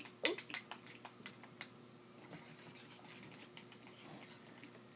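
Hands squishing and working sticky slime: a quick run of short wet clicks in the first second and a half, then faint small handling sounds.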